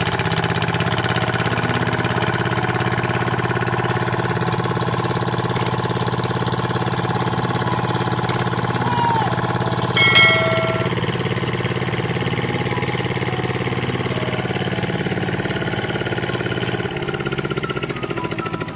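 Small engine-driven water pump running steadily as it drains the pond. About ten seconds in, a short electronic chime sounds over it.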